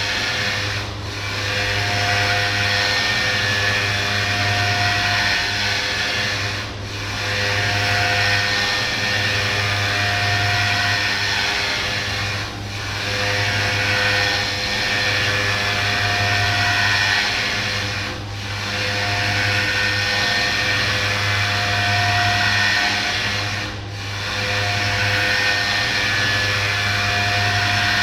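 CNC orthopedic milling machine's spindle cutting a prosthetic: steady, loud cutting noise over a hum, dipping briefly about every six seconds in an even cycle.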